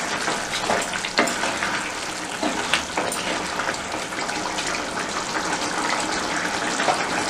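A thick chicken and potato curry bubbling and simmering in an open pan, with a wooden spatula stirring through it, giving a few faint knocks against the pan.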